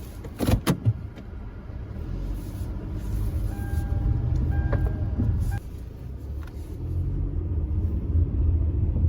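A car's engine running with a steady low road noise that builds after a few sharp knocks in the first second. A short, thin tone sounds twice around the middle.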